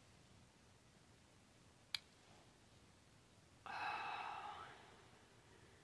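A woman's sigh, about a second long, a little past halfway through, as she struggles to keep her composure while close to tears. A single sharp click comes about two seconds in; otherwise near silence.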